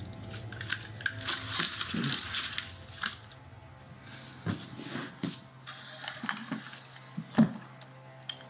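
Paper crinkling and things being handled in a gift box: a rustle for the first few seconds, then scattered clicks and knocks, with one sharper thump about seven seconds in.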